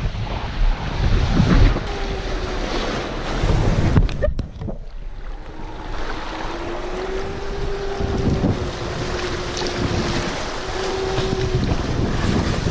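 Wind buffeting the microphone over water rushing along the hulls of a Leopard 46 sailing catamaran under way, the loudness rising and falling in gusts. A faint steady whine joins in a few seconds in and holds for most of the rest.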